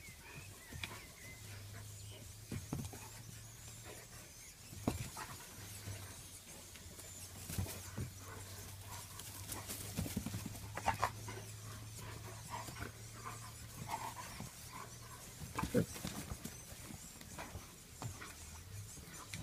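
German Shepherd dog fighting a mink in grass: irregular snaps, scuffles and panting, with a few brief higher cries near the middle. The sharpest, loudest sounds come about five, ten and sixteen seconds in, over a steady low hum.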